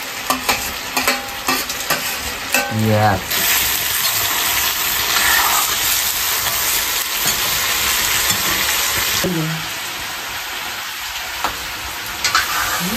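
Sliced onions with chunks of meat and potato sizzling in a black wok while a steel ladle clinks and scrapes against the pan as it stirs. The sizzle grows louder about three seconds in and eases about nine seconds in.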